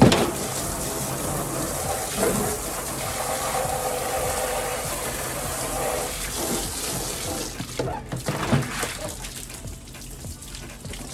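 Water running from a tap and splashing as fridge parts are washed under it. It eases off after about eight seconds.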